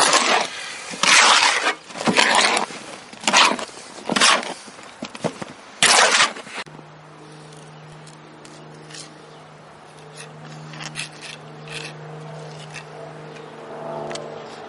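Trowel scraping and working a stiff, clay-like Portland cement patching mortar in its mixing container, in repeated strokes about once a second. After about six and a half seconds the scraping stops and only a faint steady low hum with a few light ticks remains.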